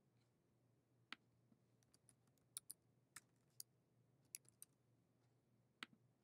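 Faint computer keyboard typing: a dozen or so separate key clicks, some in quick little runs, over a faint steady low hum.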